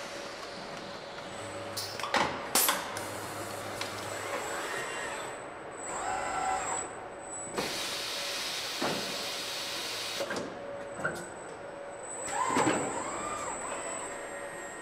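Car-body assembly line machinery: industrial robot arms moving with rising and falling motor whines, pneumatic clamps clacking shut about two seconds in, and a burst of compressed-air hiss near the middle, over a steady machine hum.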